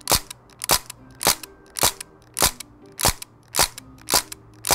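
Crosman DPMS SBR CO2 BB rifle firing a steady series of sharp shots, one at a time, a little under two a second.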